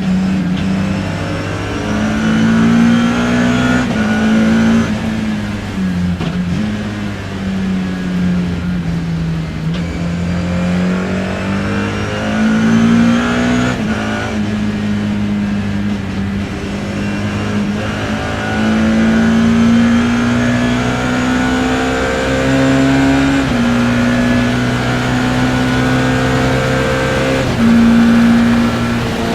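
BMW E30 M3's S14 four-cylinder race engine, heard from inside the car, pulling hard through the gears. Its pitch climbs and then drops sharply at each upshift, several times, with one longer slowing near the middle.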